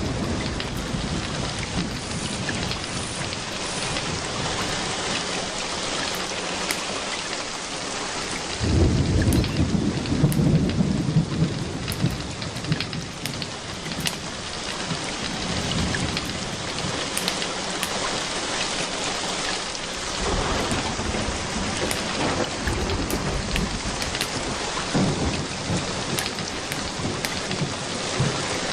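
Steady rain falling, with a low rumble of thunder rolling in about nine seconds in and a weaker rumble about twenty seconds in.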